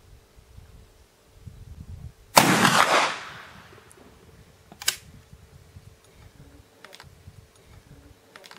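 Single shot from a Pedersoli Whitworth .451 percussion muzzle-loading rifle about two seconds in, a sudden report trailing off over about a second. A sharp click follows a couple of seconds later, then a few faint clicks as the rifle is handled.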